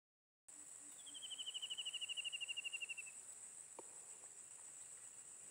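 Faint outdoor insect chorus, a steady high-pitched buzz. About a second in, a rapid trill of pulses starts and falls slowly in pitch for about two seconds. The audio cuts out completely for the first half second.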